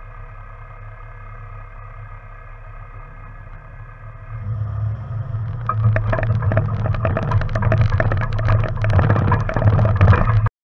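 Off-road vehicle engine idling steadily, then about five seconds in it grows much louder as the vehicle pulls away over a rocky gravel trail, the engine running under load with tyres crunching and many short knocks and rattles.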